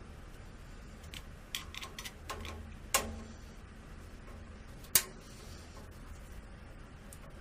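Scattered sharp clicks and taps of a screwdriver driving a thick self-tapping screw into a computer case fan, with the loudest clicks about three and five seconds in, over a faint low hum.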